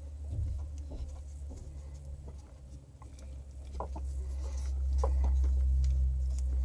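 Red vinyl electrical tape being pulled off the roll and wrapped around wire connectors, with small crackles and short squeaks, over a steady low hum that gets louder about two thirds of the way through.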